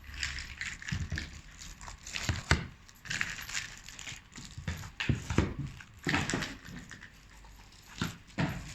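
Metal fusion-welding sockets for a PPR pipe welder clinking and clattering against each other as they are handled, in irregular bursts of sharp clinks.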